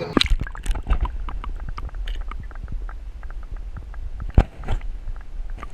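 Irregular clicks, knocks and rattles of gear being handled in a kayak, over a low rumble on the microphone, with one sharp loud knock about four and a half seconds in.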